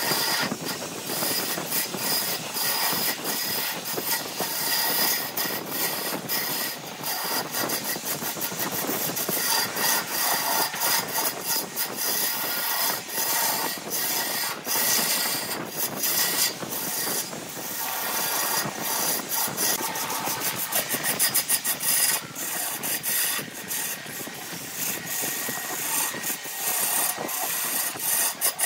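A turning gouge cutting into a spinning blank of aged grapefruit wood on a wood lathe: a continuous scraping hiss of shavings peeling off, broken by rapid clicks as the tool meets the turning surface.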